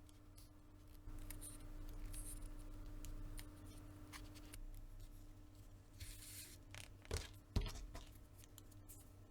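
Faint scratching and cutting sounds of hand tools working leather, with two sharp knocks about seven seconds in.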